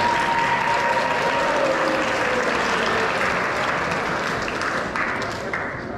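Audience applauding, the clapping easing off near the end.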